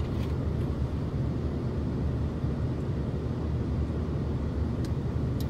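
Steady low rumble of a car idling, heard inside the cabin, with a couple of faint clicks near the end.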